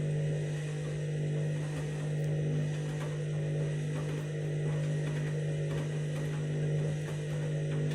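Candy washing machine's motor turning the drum at low speed with a steady hum and a gentle rise and fall in level about once a second, as it works an out-of-balance bedding load before its 1200 rpm final spin.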